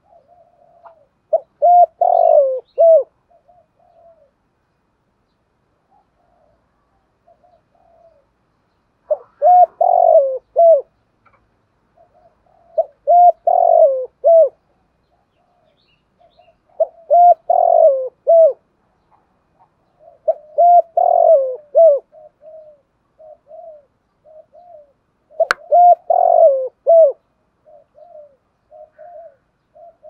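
A spotted dove cooing. It gives about six phrases of several deep coos, a few seconds apart, with softer short coos between them. A single sharp click comes about 25 seconds in.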